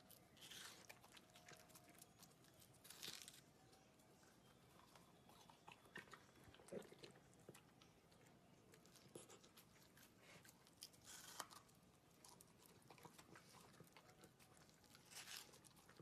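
A dachshund chewing its food, faint, with many small clicks of teeth and food throughout and a few louder bites.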